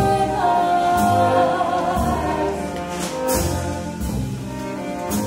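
Small pit orchestra playing an instrumental passage of a show tune, with a long held melody note early on and drum or cymbal strokes about once a second.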